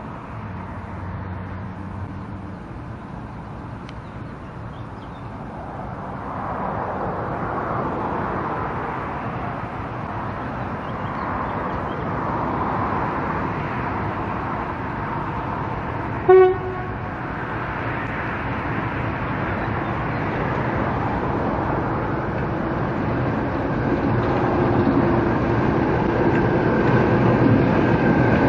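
Class 08 diesel shunter's English Electric six-cylinder engine running as the locomotive approaches, growing steadily louder. One short horn toot about halfway through.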